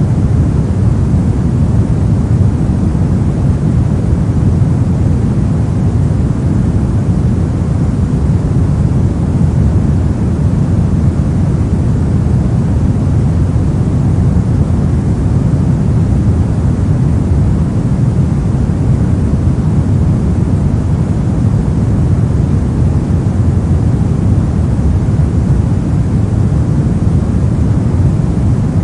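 Steady synthetic pink noise, an even, unbroken hiss weighted toward the low end with no change or events.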